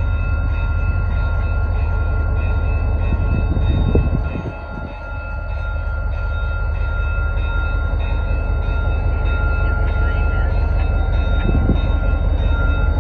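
Diesel locomotive running light, its engine rumbling steadily with a thin steady whine above it. The sound dips briefly about four to five seconds in, then comes back.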